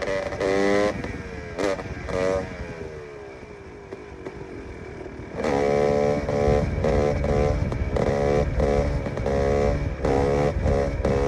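KTM EXC 300's single-cylinder two-stroke engine revved in short throttle bursts, its pitch falling away and quieter for a few seconds after the first second, then revving hard again in repeated bursts from about five and a half seconds in.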